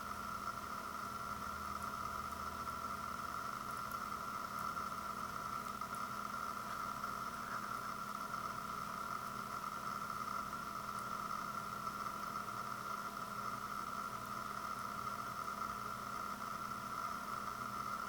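Steady hum with hiss, unchanging throughout.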